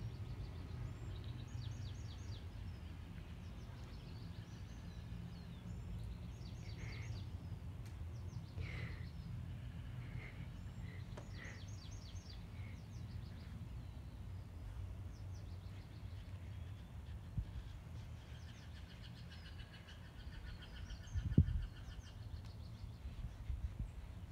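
Small birds chirping in repeated quick runs of high chirps over a steady low background rumble, with a single short thump about 21 seconds in.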